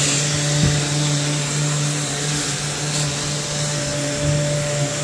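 SurfPrep random orbital sander running steadily as it sands primer on a cabinet door: a constant motor hum over an even sanding hiss.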